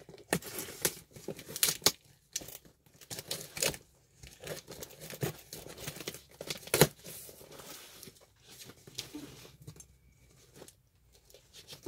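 Scissors cutting through packing tape on a cardboard shipping box, with tape tearing and cardboard rustling in irregular snips and scrapes, and one sharp knock about seven seconds in.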